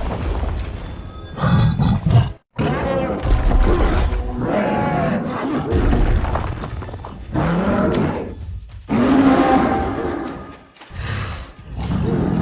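A string of separately cut creature roars, growls and snarls from the film sound design of Skar King, the giant ape. Each call has a pitch that bends and glides, and each breaks off with an abrupt cut before the next begins.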